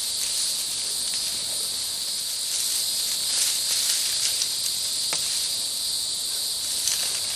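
Insects chirring steadily in a continuous high-pitched chorus, with a few faint clicks.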